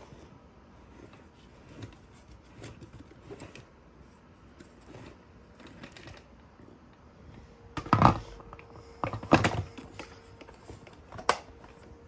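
Handling noise: light clicks and rustles, then a few louder knocks about eight and nine seconds in and one more near the end.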